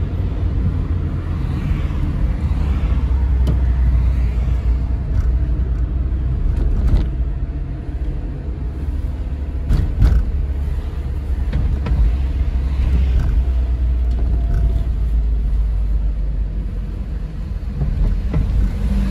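Car engine and road noise heard from inside the cabin while driving, a steady low rumble, with a couple of brief knocks about seven and ten seconds in.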